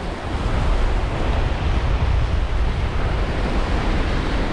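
Sea surf washing and breaking over a rock ledge, a steady rushing noise, with wind rumbling on the microphone.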